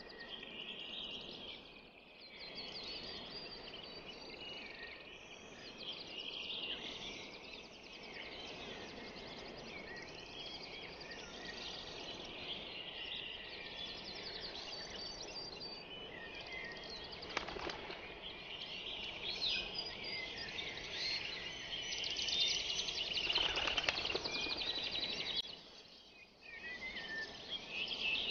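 Small birds chirping and twittering, many short high calls overlapping throughout over a low background hum, busiest near the end.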